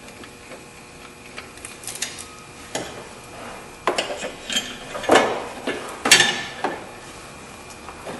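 Scattered metallic clinks and taps of a belt tensioner's mounting bolt and bracket being set loosely by hand. They are faint at first, then come as a cluster of sharper clicks from about four seconds in, the loudest near six seconds.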